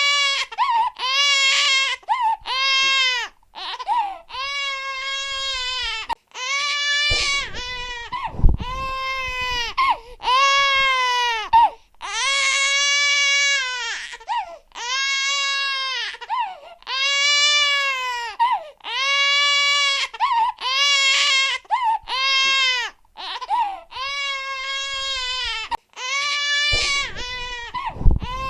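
A baby crying hard: a long run of loud, wailing cries, each about a second long, with short breaks between them. A low bump sounds twice, about eight seconds in and near the end.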